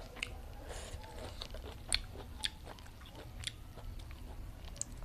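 Close-miked chewing, a person eating with the mouth making sharp wet clicks and smacks every half second to a second.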